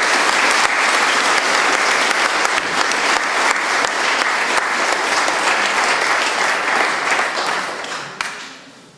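A church congregation applauding, a dense crowd of clapping that dies away over the last second or two.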